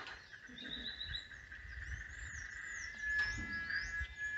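Several birds chirping and calling, many short rising and falling chirps, over a steady thin high-pitched tone that grows louder about three seconds in.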